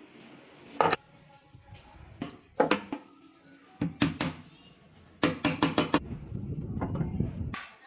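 Small ball-peen hammer tapping small nails through a strip of decorative wood beading into a laminated cupboard board: sharp single taps, a quick run of about five taps just past the middle, and more taps near the end.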